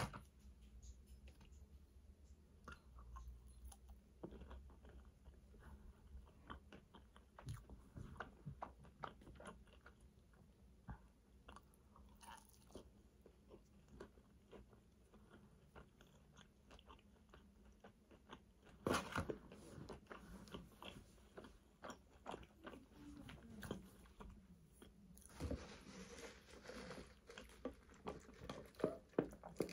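A person eating fast food up close to the microphone: faint, irregular biting, chewing and crunching. A louder bout comes about two-thirds through, and the chewing gets busier near the end.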